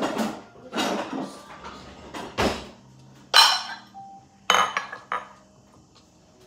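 Glass bowls and a glass measuring cup handled and set down on a counter: a run of clattering knocks and clinks, the loudest a ringing clink about three and a half seconds in.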